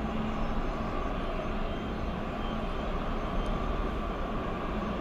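Jet aircraft engines running steadily: a continuous low rumble with a faint whine, without distinct events.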